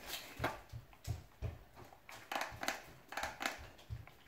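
Handling noise: irregular clicks, knocks and rustles as a small object is fiddled with close to the microphone.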